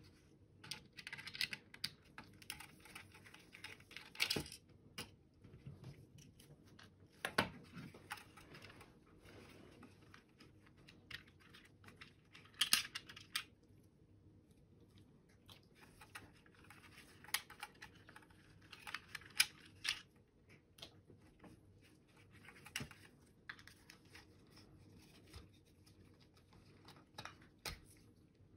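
Plastic shell parts of a disassembled SteelSeries Sensei 310 gaming mouse being handled and separated by gloved hands: irregular light plastic clicks and rustling, with a sharper click about thirteen seconds in.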